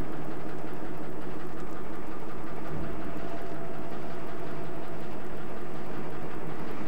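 The two-cylinder compound horizontal reciprocating steam engine of an 1882 harbour ferry running steadily after the bell to start, played from a vinyl record.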